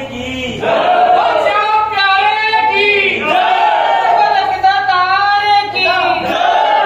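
A group of men chanting devotional calls together, loud and in unison, with long drawn-out notes.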